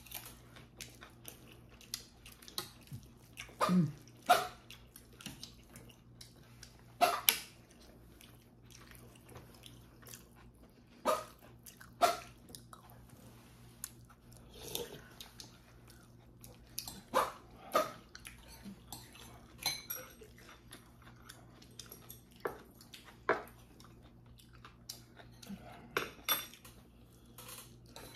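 A metal spoon and chopsticks clink against a ceramic bowl every few seconds, in about a dozen sharp separate clinks, between the wet chewing and mouth sounds of someone eating.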